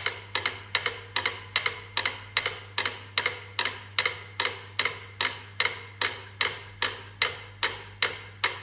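Mechanical metronomes ticking in a steady, even rhythm, about three ticks a second, over a low steady hum.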